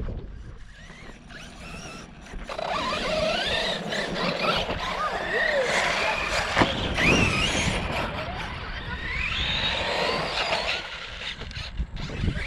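Arrma Outcast 6S RC monster truck's brushless electric motor whining from about two seconds in, its pitch rising and falling as the throttle is worked. A sharp knock comes about halfway through as the truck lands from a jump.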